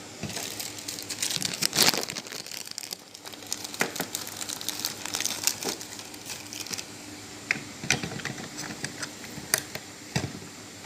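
Crinkling, rustling handling noise with irregular small clicks and taps, busiest about two seconds in.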